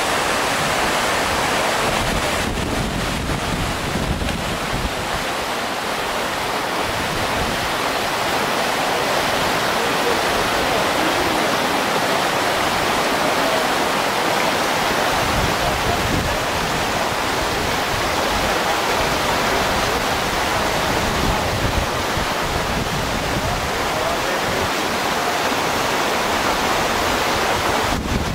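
Steady rush of whitewater rapids on a river slalom course.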